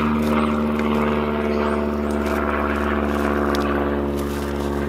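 A steady engine drone: a low hum with evenly spaced overtones that holds the same level and pitch throughout. Faint scraping and rustling of soil as hands dig in it.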